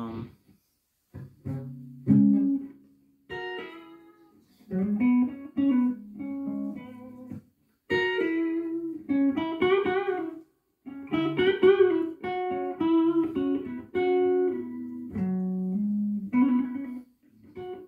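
Les Paul-style electric guitar with humbucking pickups playing single-note lead licks, in short phrases with brief pauses between them.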